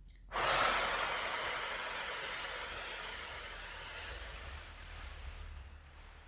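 A person's forceful exhale through the mouth: a long whooshing breath that starts abruptly and slowly fades away over about six seconds. It is the eight-count out-breath of 4-7-8 breathing.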